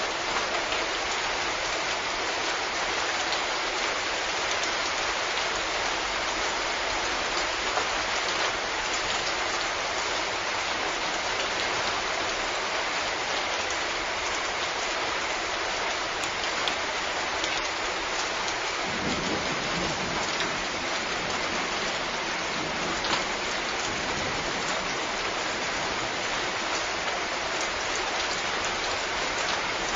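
Steady rain, an even hiss of drops. A brief low rumble comes in about two-thirds of the way through.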